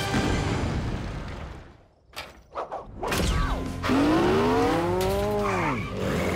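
Cartoon soundtrack: background music fades out, then a few sharp knocks, then a long pitched sound effect that rises and then falls in pitch over about two seconds.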